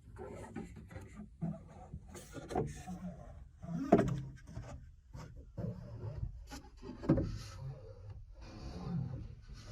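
Hands working on a 3D printer's lead screws: irregular rubbing and handling noises, with a sharper knock about four seconds in and another about seven seconds in.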